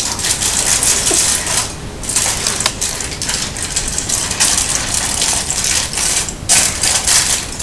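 Aluminium foil crinkling and crackling as it is handled, in stretches broken by a couple of brief pauses.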